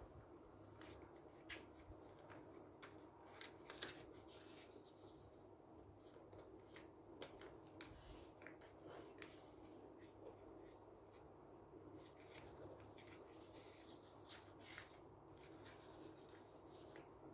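Faint rustling and crinkling of a sheet of white paper being folded and creased by hand, in scattered soft crackles, over a low steady hum.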